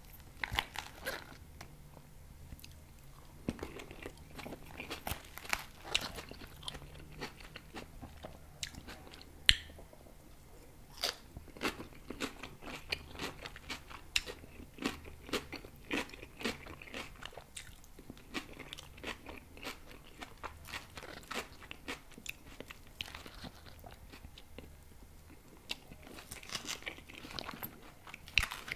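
Close-miked chewing of raw salad leaves, lettuce and purple cabbage, with sharp irregular crunches throughout; the loudest comes about nine and a half seconds in.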